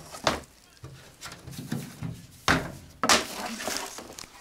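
Household clutter being handled and moved: a sharp knock about two and a half seconds in, then a brief burst of rustling.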